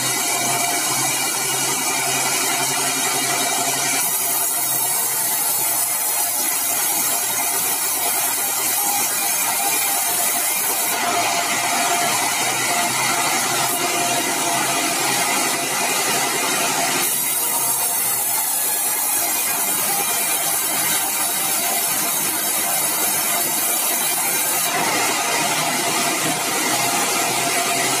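Sawmill saw running steadily and cutting bengkirai hardwood timber into boards and beams. The hissing cut noise grows brighter for several seconds at a time, three times, and dulls in between.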